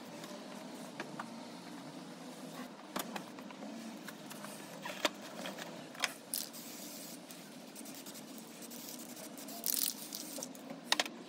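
Aerosol spray paint can hissing briefly near the end as paint is sprayed onto the water surface of a dipping tub. Before that come scattered light clicks and knocks of hands and paint cans being handled, over a steady low background hum.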